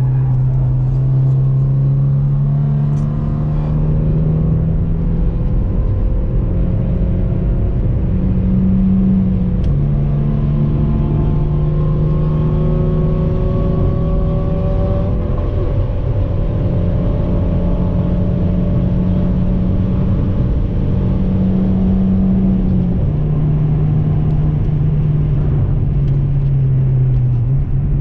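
Stock Seat Ibiza's engine heard from inside the cabin, its pitch climbing steadily and then stepping down sharply twice at gear changes, before falling near the end. Road and wind rumble run underneath.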